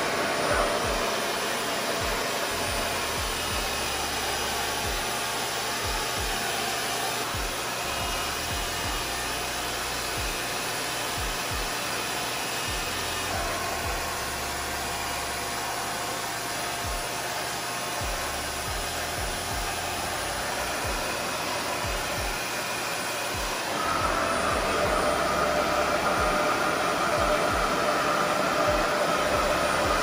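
RevAir reverse hair dryer running steadily: a suction dryer that pulls water out of wet hair through its wand. Near the end it gets louder and a whine comes in.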